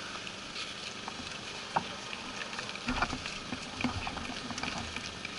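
Outdoor background noise with scattered light taps and clicks; the sharpest click comes just under two seconds in.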